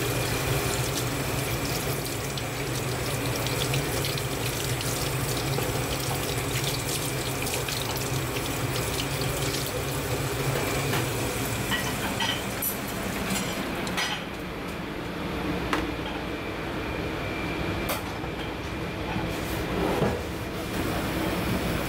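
Tap water running into a stainless steel sink as a whole fish is rinsed under the stream. The flow stops about two-thirds of the way through, followed by a few sharp knocks.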